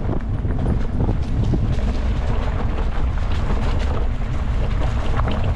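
Wind buffeting the microphone: a loud, gusty low rumble with scattered crackles.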